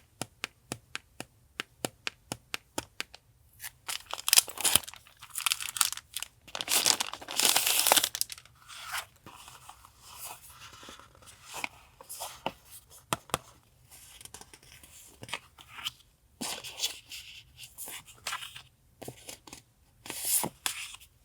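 Paper and plastic packaging of journaling supplies rustled, crinkled and torn open by hand. The first three seconds hold a run of quick, even ticks at about three or four a second. The loudest rustling comes around four to eight seconds in.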